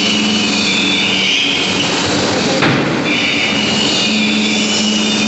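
A 2-ton belt-drop forging hammer running, with a steady hum and a high squeal from the machinery, and one sharp blow of the ram about two and a half seconds in.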